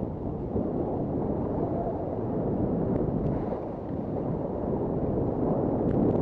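Wind buffeting the microphone of a helmet-mounted camera as a skier glides down a groomed slope: a steady noise, strongest in the low range, with the skis running over packed snow beneath it.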